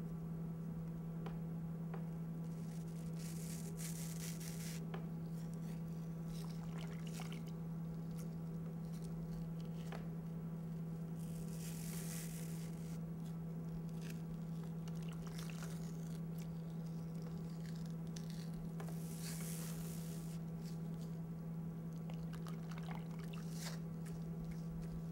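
Wet bandage strips being squeezed out over a bowl of water and pressed and smoothed onto a head, squishing and dripping in a few short bursts over a steady low hum.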